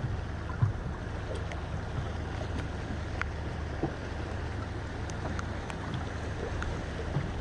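Steady low rumble of wind and water slapping around a small fishing boat, with scattered light ticks of rain and one dull knock about half a second in.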